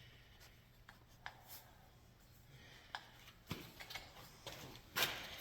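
Faint scattered clicks and taps of metal being handled, then a louder scraping rush near the end.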